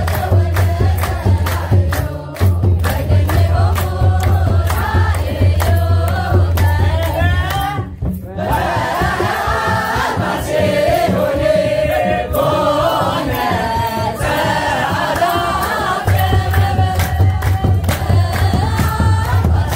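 Ethiopian Orthodox wereb chant: a group of voices singing together to steady handclaps and the beat of a kebero drum, with a brief break about eight seconds in.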